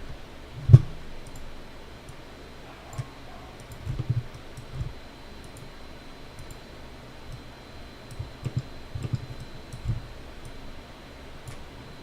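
Computer mouse clicking now and then, mixed with a few dull low thumps, the loudest one just under a second in.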